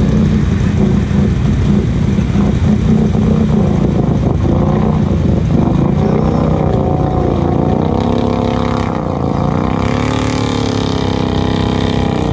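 Close ATV engine running steadily, typical of a Can-Am Outlander XMR 1000's V-twin, while an engine revs up and down in repeated rising and falling sweeps from about four seconds in.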